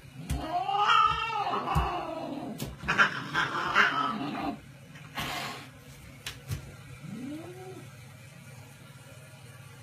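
Cat yowling at a dog: one long call that rises and falls in pitch about a second in, then harsh hissing from about three to four and a half seconds in, and a fainter short call near the end.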